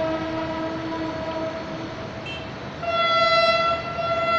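Pakistan Railways train horns: one long blast already sounding fades out about two seconds in, and a second, higher-pitched and louder blast starts about three seconds in and holds to the end, over a steady rumble of the rail yard and city.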